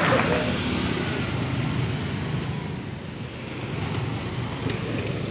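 Road traffic: motorcycles and cars driving past, with a steady mix of engine and tyre noise that eases about halfway through and then builds again.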